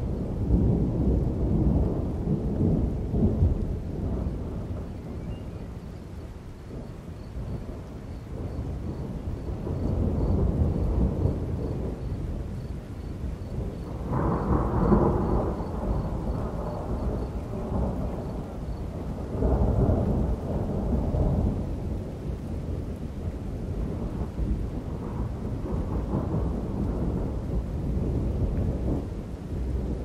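Thunder rolling and rumbling in several long swells over steady rain. The biggest rolls come a couple of seconds in, about halfway through and a little after.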